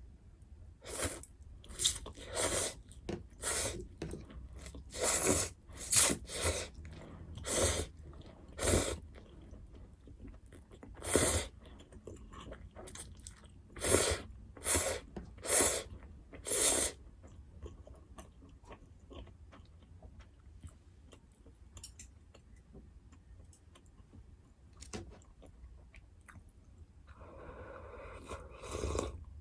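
Close-miked eating: a run of loud, crisp crunching bites and chews through the first half or so, then softer small chewing clicks, with a brief rushing noise near the end.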